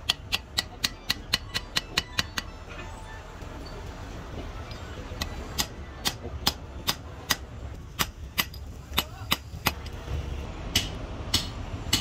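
Hand hammer striking a steel punch held against a hydraulic breaker's cylinder body, sharp metal-on-metal taps. There is a fast run of about four taps a second, a pause of a couple of seconds, then steadier taps about two or three a second, and two last taps near the end.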